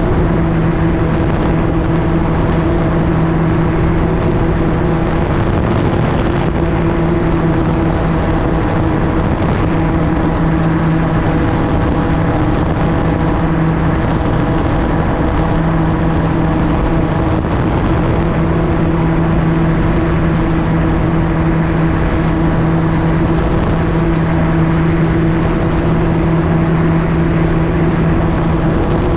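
MTO-S gyroplane in flight: its engine and pusher propeller drone steadily at one pitch under a constant rush of air. The tone wavers briefly a couple of times.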